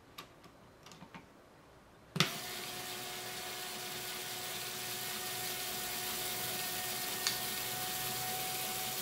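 A few light clicks, then about two seconds in a LEGO Power Functions electric motor starts with a sharp click and runs steadily. It drives the LEGO Technic gear train of a spirograph drawing machine with a steady whir and a constant gear whine, and there is one more click near the end.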